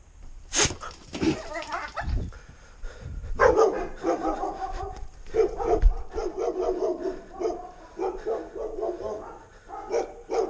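Dogs barking over and over in quick runs of short barks, after a single sharp snap about half a second in.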